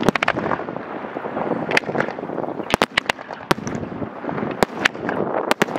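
Professional fireworks display: many sharp bangs and cracks at irregular spacing, several in quick clusters, over a continuous rushing background.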